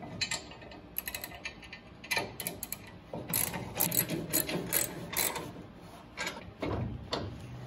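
Hand socket ratchet clicking in quick runs as it turns a bolt in a jam nut welded to a square steel-tube bracket, with a dull knock near the end.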